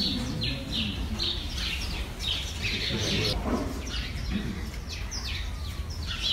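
Small birds chirping over and over, short falling chirps a few times a second, over a steady low hum.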